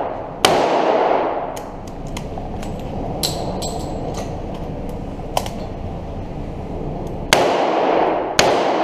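Three revolver shots, one about half a second in and two about a second apart near the end, each ringing out in the reverberant indoor range. Lighter clicks and knocks come in between as the shooter moves.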